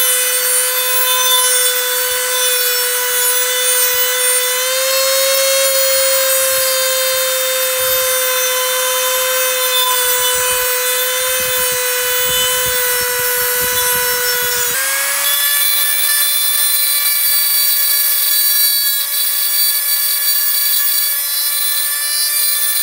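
Dremel rotary tool with a sanding disc running as a steady high whine while it grinds clearance into an engine oil-pan baffle. The pitch steps up slightly twice, a few seconds in and about two-thirds of the way through.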